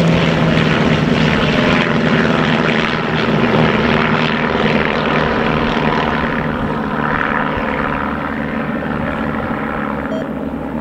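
Engines and propellers of several light single-engine aerobatic aircraft flying overhead in formation: a steady propeller drone that slowly fades over the last few seconds.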